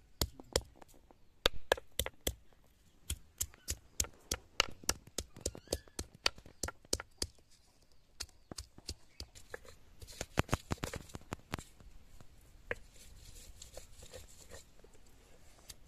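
Hand-held stone pestle striking garlic cloves and onion pieces on a flat stone grinding slab, crushing them. It is a run of sharp knocks, about two or three a second, with a quicker flurry past the middle that thins out toward the end.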